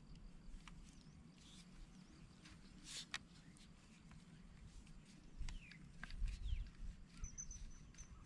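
Quiet outdoor ambience with scattered small clicks and a few brief high chirps, and a low rumble swelling about five to seven seconds in.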